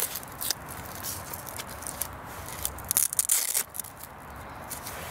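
Hook-and-loop (Velcro) strap on a bike rack's frame arm being pulled and pressed shut, heard as several short crackling rips, the loudest about three seconds in.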